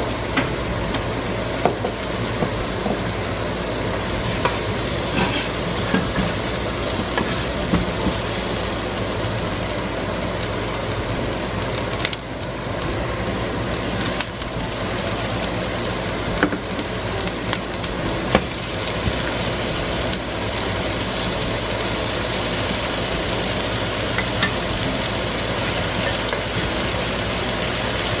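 Onion and ginger sizzling steadily in hot oil in a nonstick frying pan, with scattered sharp clicks and knocks of a spoon against the pan as raw chicken thighs are laid in.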